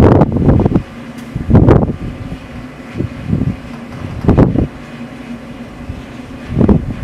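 Wind buffeting the microphone in about four heavy gusts, over a steady low mechanical hum from the telescope dome's machinery.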